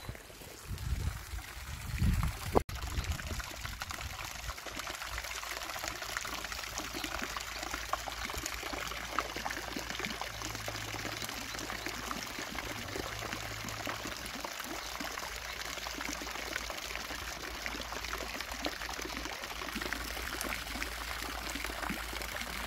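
Garden fountain splashing steadily into an ornamental pond. Low rumbles on the microphone in the first few seconds.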